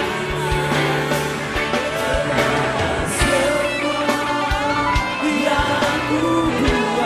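Live band music for a worship song, with a steady drum beat.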